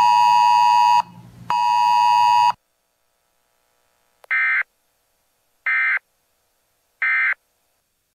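Two loud electronic beeps, the first ending about a second in and the second lasting about a second, then three short chirps of digital data about 1.3 s apart. The chirps are the SAME end-of-message code that closes a NOAA Weather Radio alert broadcast.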